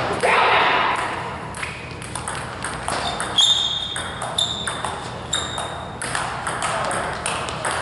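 Table tennis rally: the ball clicking off the paddles and bouncing on the table, with sharp pings about once a second in the second half.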